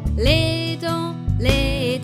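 Cheerful children's song music: two long held melody notes, each sliding up into pitch, over a steady bass.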